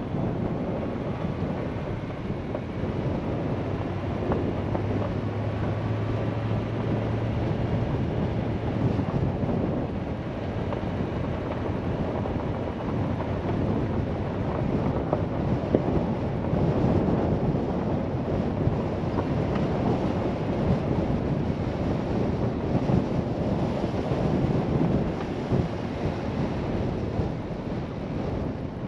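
Wind buffeting the microphone of a camera on a moving vehicle, over tyre and road noise from driving a gravel road. A low hum comes in for about five seconds a few seconds in.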